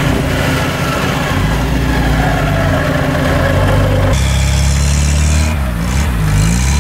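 Lada Niva engines running during a tow recovery out of mud: a steady engine drone, then, after a change about four seconds in, an engine note that dips and rises as the throttle is worked.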